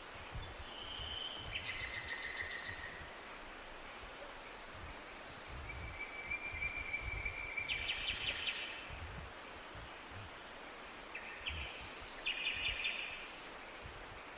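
A songbird singing three separate phrases, each a quick string of high trills, buzzy repeated notes and held whistles, over a low, uneven rumble.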